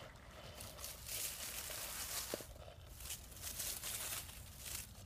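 Dry leaf litter rustling and crackling as a hand pushes it aside, in two spells of a second or so each.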